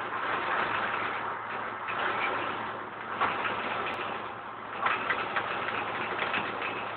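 John Deere 9870 STS combine harvester running while it harvests barley: a steady engine drone with a dense rushing noise over it, and a few louder crackly moments about three and five seconds in.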